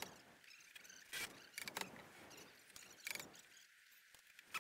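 Cordless drill-driver driving screws into wood framing in several short bursts of a fraction of a second each.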